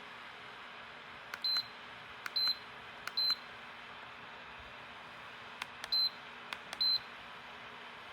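Plug-in electric space heater's fan blowing with a steady hiss, while its controls are pressed: five clicks, each followed by a short high beep, three in quick succession and then two more a few seconds later.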